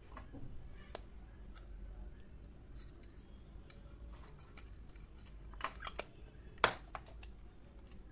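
Light plastic clicks and taps from miniature toy wheelie bins being handled, one with its hinged lid flipped open; the sharpest click comes about two-thirds of the way in.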